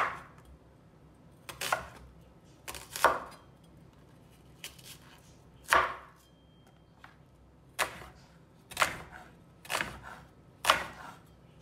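Chef's knife slicing through an onion and knocking on a bamboo cutting board, about eight sharp cuts. They come a second or two apart at first, then about once a second near the end.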